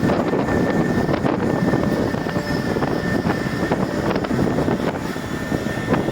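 Dynapac MF2500CS asphalt paving machine running steadily, a dense mechanical noise with a faint constant high whine, with wind on the microphone.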